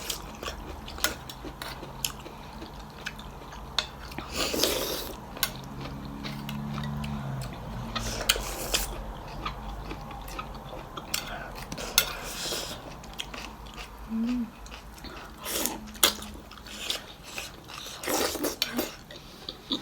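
Someone eating thenthuk noodle soup: utensils clicking against a bowl again and again, with several louder slurps and chewing.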